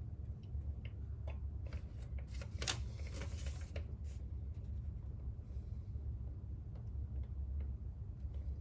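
Faint handling noise, light scattered clicks and rustles, mostly in the first four seconds, over a steady low hum.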